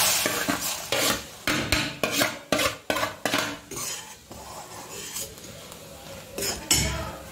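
A steel spoon stirs semolina into boiling water in a stainless-steel pan, knocking and scraping against the pan. The knocks come thick and fast in the first few seconds, soften to scraping, then clatter again near the end.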